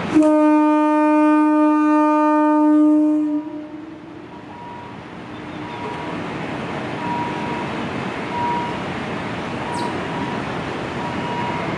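Kiha 183 diesel railcar's air horn sounding one long blast on a single note for about three seconds, then cutting off, leaving a quieter steady running noise.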